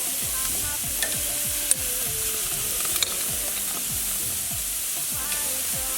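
Beef and corn sizzling on a barbecue grill, a steady hiss with two sharp clicks in the first half. Background music with a repeating bass line plays underneath.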